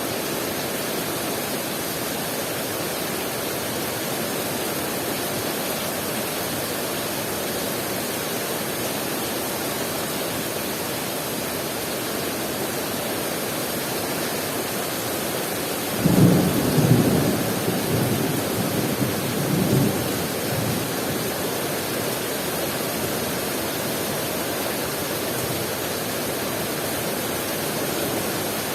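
Heavy rain falling steadily. About halfway through, thunder breaks suddenly, louder than the rain, and rumbles on in several swells for about five seconds.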